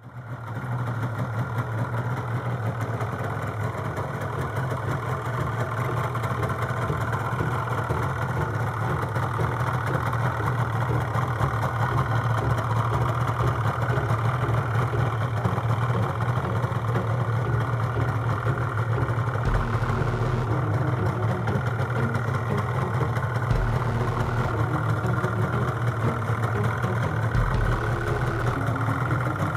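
1983 Yamaha RD350 YPVS two-stroke parallel-twin engine idling steadily.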